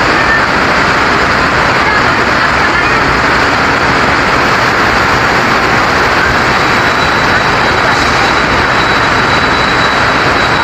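A cement freight train rolling through the station in the rain, making a loud, steady running noise. A thin high squeal joins in about two-thirds of the way through.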